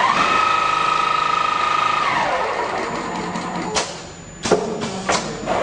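Richpeace automatic sewing machine's motor whining up to speed, stitching at a steady pitch for about two seconds, then winding down. After that come three or four sharp clicks from the machine's mechanism.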